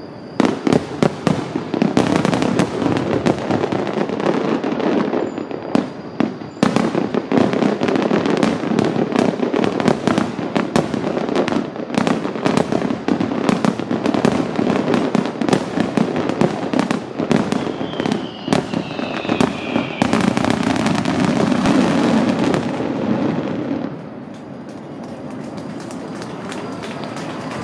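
Dense barrage of aerial fireworks shells bursting in rapid succession, sharp bangs and crackling overlapping, with a brief falling whistle partway through. The barrage stops about 24 seconds in, leaving a quieter din.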